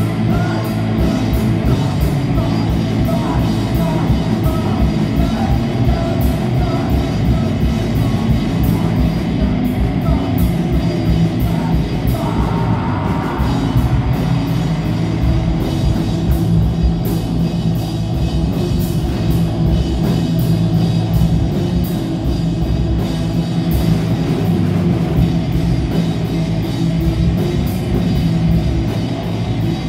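Live rock band playing loud and without a break: distorted electric guitars, bass guitar and a drum kit with fast cymbal strokes.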